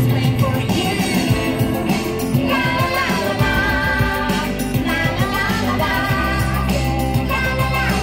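An upbeat show song: singing over a band backing with a steady bass and beat.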